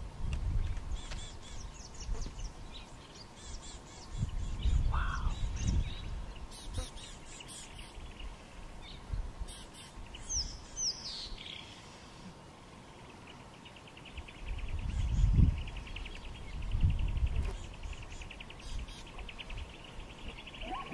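Outdoor ambience of wild birds chirping, with a few short falling whistles and a fast, steady trill in the second half. Several low rumbles swell and fade, the loudest about fifteen seconds in.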